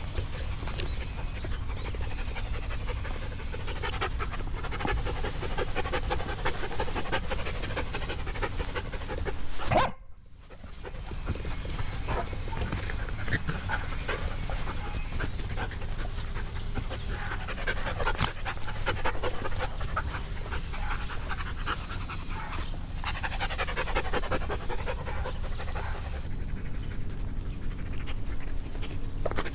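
Dogs panting close by, a quick rhythmic huffing that comes and goes in runs over a steady low rumble; it breaks off briefly just before ten seconds in.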